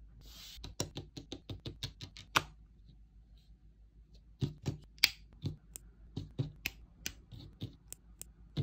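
Small plastic parts of a Blokees Transformers snap-together figure clicking as they are pressed and snapped into place, an irregular run of sharp clicks with a short pause midway.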